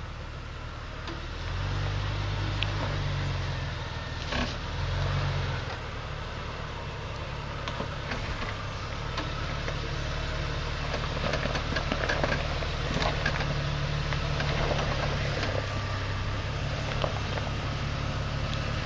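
Jeep Cherokee XJ engine running at low revs while crawling up a rutted dirt trail, with the throttle swelling twice in the first few seconds. Scattered clicks and crunches from the tyres working over dirt and brush.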